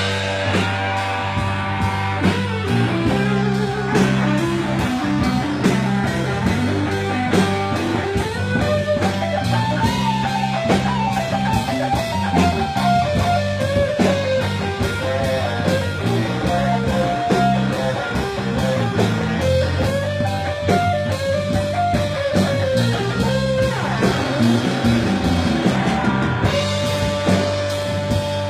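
Live blues band playing an instrumental break: a single melodic lead line, with electric guitar, over bass and drum kit.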